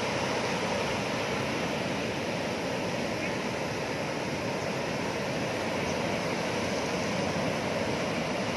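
Steady rushing noise of strong onshore wind and sea surf, with no distinct breaks or swells.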